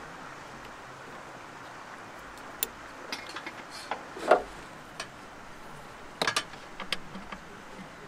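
Plastic solar-cable connectors and leads being handled and clicked together: a scatter of small clicks and knocks from about two and a half seconds in until near the end, the loudest around the middle. Under them runs the steady rush of a creek.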